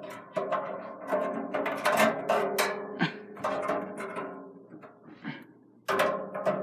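Background music with held notes and a steady percussive beat, dropping almost away for about a second and a half near the end before returning.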